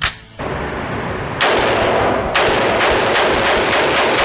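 Daniel Defense DDM4V11 AR-15 rifle firing 5.56 rounds: a single shot about a second and a half in, then a rapid string of shots, about three a second, each blending into the echo of the last.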